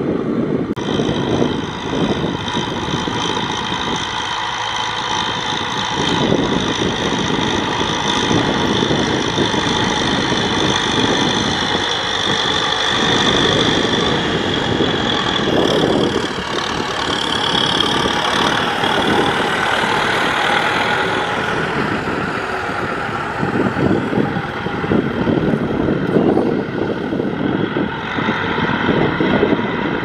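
Kubota tractor's diesel engine running steadily under load while pulling a disc plough through the soil.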